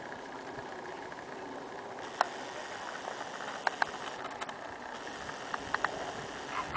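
Faint steady outdoor hiss, broken by a handful of short sharp clicks: one about two seconds in, a pair near four seconds and a quick cluster near six seconds.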